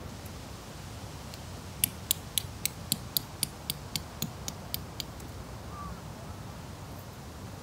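A quick run of about a dozen light, sharp clicks, roughly four a second and fading, from the camper's hands working the corner fittings of an ultralight tarp. A steady low wind rumble runs underneath.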